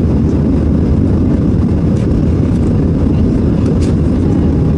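Steady low roar inside the cabin of a Boeing 737-800, from its CFM56 turbofan engines and the rush of air past the fuselage, heard from a rear-cabin seat, with a couple of faint ticks from the cabin.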